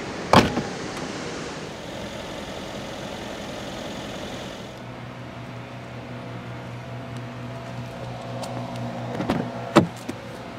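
The power trunk lid of a Mercedes-Benz S-Class sedan latches shut with one sharp clunk about half a second in. Near the end comes a double click-clunk as the rear door handle is pulled and the latch releases, with a steady low hum underneath.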